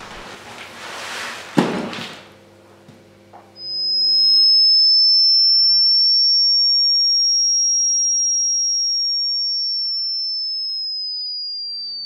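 A rustling noise over a low hum, then about three and a half seconds in a loud, pure electronic tone sets in: a single high whistle that rises slightly, then slowly falls in pitch and fades away.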